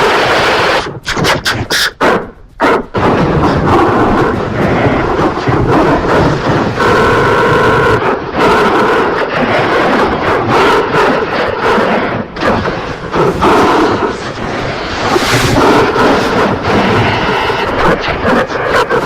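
A logo jingle played through heavy audio effects: loud, harsh and distorted, with held electronic tones. About a second in it stutters, cutting in and out rapidly for a couple of seconds.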